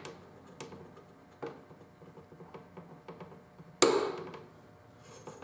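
Click-stop torque wrench being pulled to its setting: a few faint ticks, then a loud sharp click with a short ringing tail about four seconds in as it breaks over at the set torque, and another such click right at the end.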